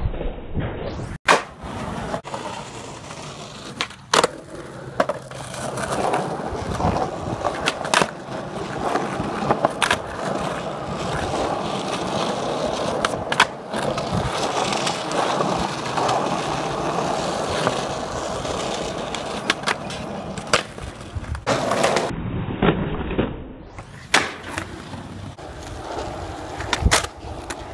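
Skateboard wheels rolling over rough pavement, with a sharp clack every few seconds as the board is popped and landed.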